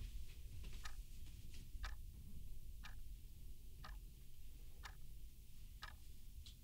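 A clock ticking steadily, a clear tick about once a second with fainter ticks between, over a low, quiet room hum.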